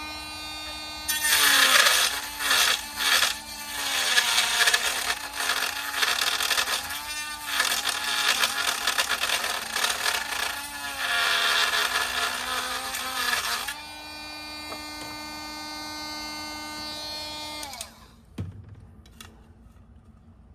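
Dremel rotary tool fitted with a grinding stone, whining steadily while grinding out a broken plastic smokestack. The pitch dips again and again as the stone bites under load, with a rough grinding noise over it. For the last few seconds it runs free, then is switched off and winds down.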